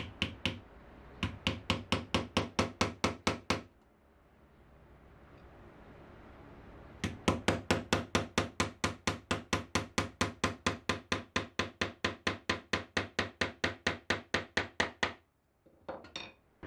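Small hammer tapping brads into a wooden cabinet door frame to pin a glass panel in place. There is a short run of light, quick taps, about four a second, then a pause of a few seconds, then a longer run of taps lasting about eight seconds.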